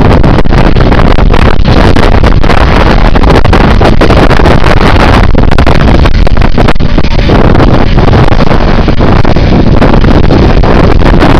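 Heavy wind buffeting the microphone, loud and constant, over the running of a tractor engine working in the field.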